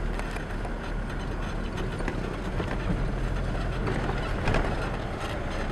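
Road noise inside a moving car's cabin: a steady low rumble of engine and tyres, with scattered knocks and rattles as the car jolts. The loudest knock comes about four and a half seconds in.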